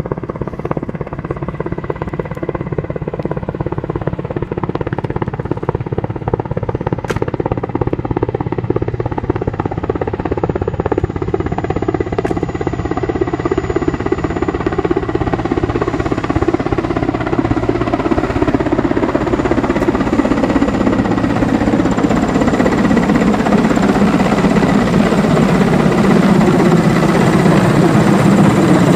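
Mil Mi-8 twin-turboshaft helicopter approaching to land: the main rotor's beat and a steady turbine whine, growing louder as it comes overhead.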